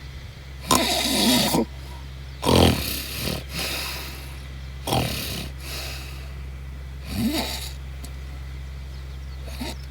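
A man snoring in his sleep, with five loud snores coming about every two and a half seconds.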